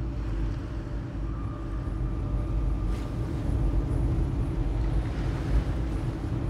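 A steady low rumble with a held mechanical hum, and a faint higher tone over it from about a second in to about four seconds in.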